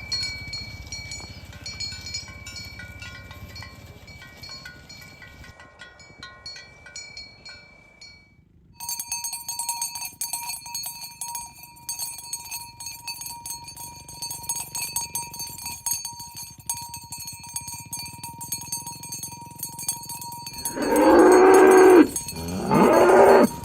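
A cow mooing twice near the end, two loud, long calls a moment apart, the second bending down and back up in pitch. Steady background music plays underneath.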